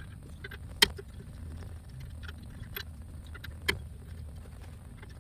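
Scattered metal clinks and ticks as a wheel spacer is worked off a wheel hub, with two sharper clicks, one about a second in and one later, over a low steady hum.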